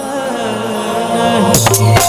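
Live devotional bhajan music: the singer's last held note fades over the accompaniment, and about one and a half seconds in the drums and band crash in loudly.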